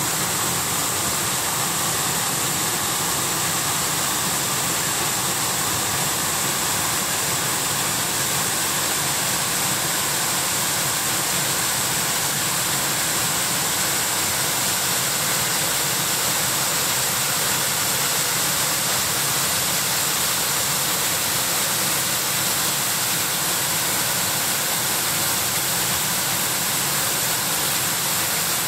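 Waterfall of a fast mountain stream rushing steadily over rocks.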